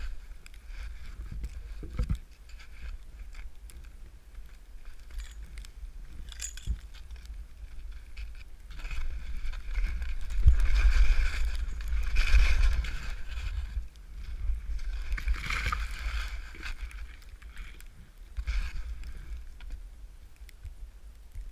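Skis sliding and turning through soft snow, with louder hissing swishes past the middle, over a low rumble of wind on the microphone.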